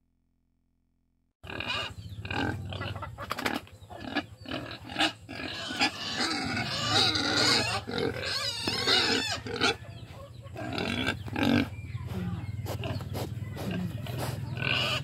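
Sows in a pen grunting: a continuous run of short, irregular grunts that starts after about a second and a half of silence.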